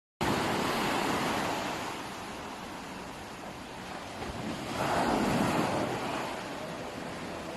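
Sea surf washing with wind on the microphone, one wave swelling louder about five seconds in.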